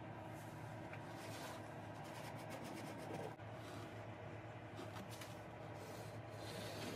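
Faint rubbing and rustling of hands pressing an adhesive LED light strip along the underside of a cabinet and handling its loose length, over a steady low hum.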